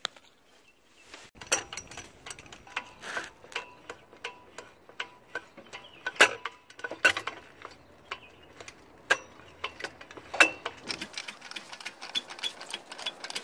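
Hydraulic floor jack being pumped by its long steel handle to lift the front of an SUV: a series of metallic clicks and clanks about a second apart, several of them loud. Near the end the clanks give way to a faster, even ticking of about four to five a second.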